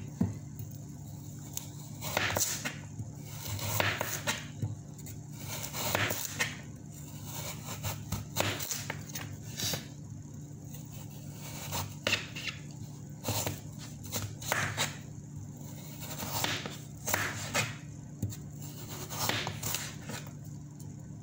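Kitchen knife slicing raw carrots lengthwise on a plastic cutting board: irregular short crisp cuts and scrapes, about one a second, over a steady low hum.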